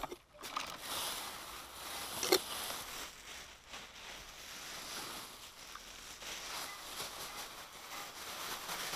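Rustling and crunching of a plastic sack and wood-chip mulch being handled and spread, with footsteps on grass. One sharp snap or knock a little over two seconds in.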